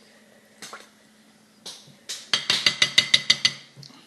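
Clinking against a dish during eating: a couple of soft clicks, then about two seconds in a quick run of about ten ringing clinks, roughly eight a second.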